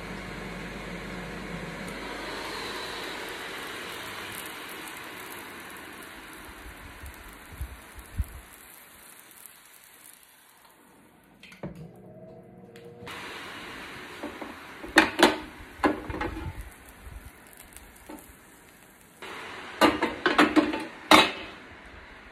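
Ninja Foodi Grill running with its lid closed while vegetables roast inside, a steady hiss of fan and sizzling that slowly fades over about ten seconds. Then sharp knocks and clatter as the lid is opened and the cooking basket is handled, twice in quick clusters.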